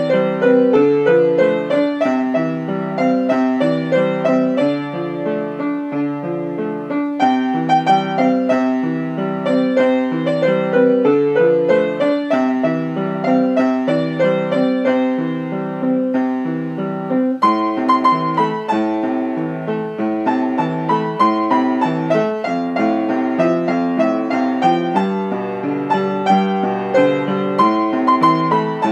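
Yamaha upright piano being played: a flowing piece with a repeating accompaniment pattern under a melody. A little past halfway the bass moves lower and the passage changes.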